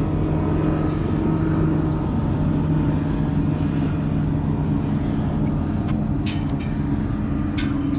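Steady low engine drone with a pitched hum, unchanging throughout, with a few faint sharp clicks near the end.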